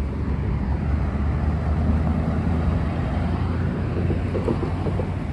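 Pickup truck engine running as the truck drives past on the street, a low, steady engine note that is loudest about two seconds in.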